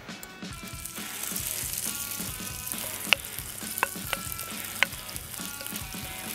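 Hot oil sizzling in a frying pan as mashed potato and broccoli trinxat is spooned in and pressed down, with four sharp clicks of a spoon knocking on the bowl and pan about three to five seconds in.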